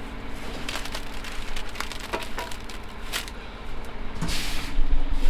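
Scattered scrapes and knocks of hand work, with a short hiss about four seconds in, over a steady engine hum.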